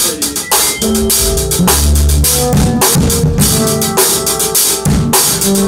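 Drum kit played in a busy groove: bass drum, snare and cymbals struck several times a second, with ringing pitched notes underneath.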